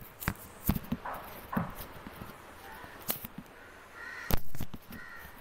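Scattered knocks and taps of hands kneading khoya and wheat-flour dough on a plate, the loudest a sharp knock about four seconds in. A few short calls, like a crow's caw, come in between.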